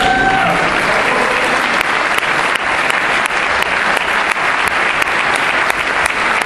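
Audience applauding in a large hall, with a brief whoop near the start.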